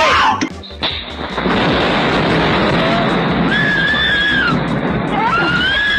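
A very loud thunderclap hits suddenly about a second in and rumbles on steadily, heard through a doorbell camera's narrow-band microphone. People cry out twice in high voices over the rumble.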